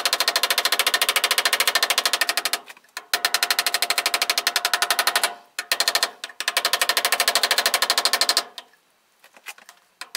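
Small steel hammer tapping rapidly and lightly on the edge of a brass ferrule fitted over a wooden tool handle, peening it over to form a crown tight against the wood. The taps come in three fast runs of roughly ten a second with short pauses between, then a few faint taps near the end.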